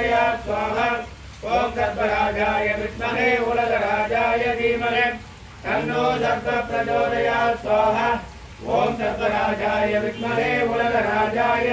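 Male voice chanting Sanskrit mantras in phrases of about three to four seconds, with a brief pause for breath between phrases.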